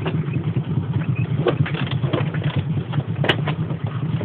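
Trail motorcycle engine running steadily at low revs, with a few sharp knocks and rattles over a rough track, the loudest about three seconds in.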